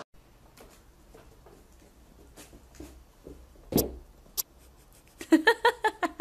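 A plastic basin tipping over onto a wooden floor with a single thud about four seconds in, followed by a light click. Near the end comes a quick run of short, loud vocal sounds, the loudest thing heard.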